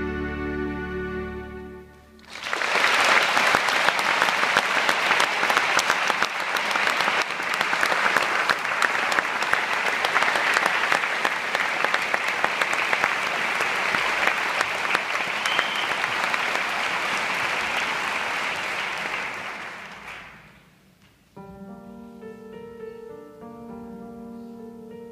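A concert audience applauding loudly for about eighteen seconds after a piece of music ends, then dying away. Near the end a new piece begins softly with slow held notes, bowed strings among them.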